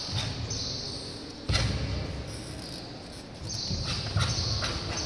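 Barefoot karate kata on a wooden sports-hall floor: a sharp thud from a stamp or landing about one and a half seconds in, and more quick snaps and thuds near four seconds, carrying in the large hall. A high hiss comes and goes in the background in stretches of about a second.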